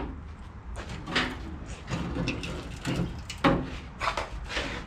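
Knocks and clunks from handling a steel car door shell, several separate strikes spread through a few seconds, over a low steady hum.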